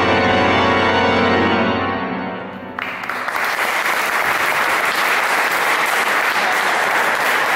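Organ holding a final chord, released about two seconds in and dying away in the church's reverberation. Audience applause breaks out suddenly just under a second later and goes on steadily.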